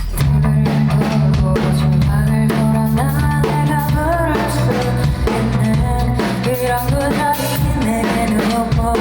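Band music starting abruptly: a drum kit with kick and snare over sustained bass notes, with a melody line above.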